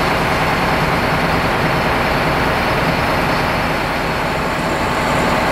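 Diesel locomotive engine running steadily close by.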